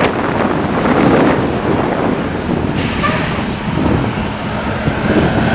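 Jet airliner engines running loud along the runway as a steady rushing noise: first an airliner that has just touched down, then, after an abrupt change about three seconds in, a GOL Boeing 737 rolling close by.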